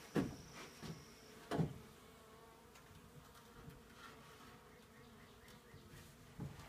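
Honey bees buzzing in a faint, steady hum, with two sharp knocks about a second and a half apart near the start as wooden hive frames are handled and set in place.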